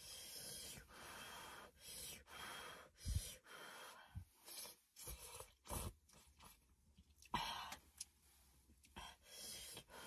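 Quiet slurping and breathing of someone eating hot rice noodles with chopsticks, in short breathy bursts, with a couple of soft low knocks.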